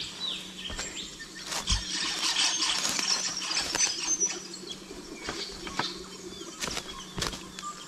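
Footsteps crunching over loose rocks and dry leaf litter, with brush rustling, busiest in the first half; birds chirp now and then.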